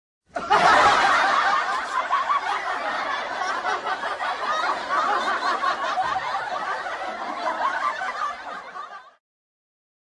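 Laughter sound effect: a dense mass of many people laughing together, like a sitcom laugh track. It starts abruptly, is loudest at first, then gradually dies down and stops about a second before the end.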